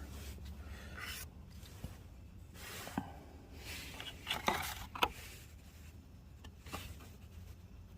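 Faint rustling and scraping of a knife's box and packaging being handled, with a few light clicks.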